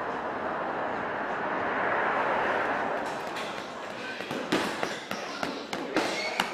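Steady street traffic noise, then from about halfway a run of irregular sharp thuds and slaps, typical of gloves hitting punch bags and pads in a boxing gym.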